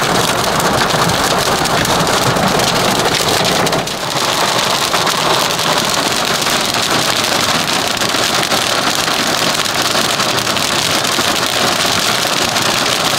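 Heavy rain mixed with hail drumming on a car's roof and windscreen, heard from inside the car: a loud, dense, continuous patter of impacts that eases briefly about four seconds in.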